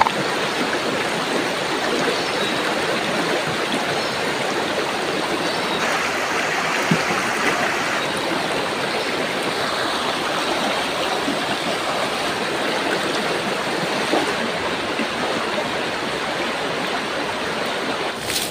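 Shallow, rocky river running over stones in small riffles: a steady rush of flowing water.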